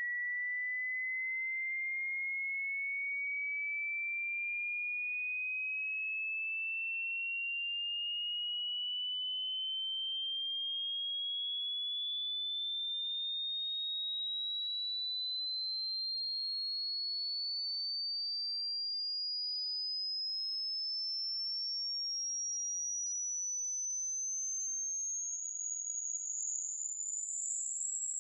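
Hearing-test sweep: a single pure tone gliding slowly and steadily upward in pitch, from a high whistle to a very high, thin pitch, used to find the highest pitch a listener can still hear. Near the end its level turns slightly unsteady.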